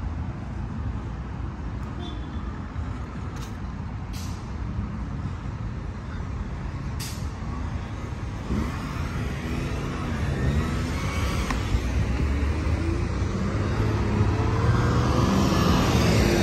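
Road traffic: cars and a bus driving past, a steady low rumble with engine notes rising and falling after about eight seconds and growing louder toward the end. A few sharp clicks in the first seven seconds.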